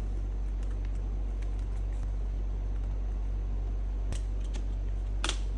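Steady low electrical hum with a faint hiss, broken by a few light clicks near the end from handling the helmet and the communicator's plastic mount.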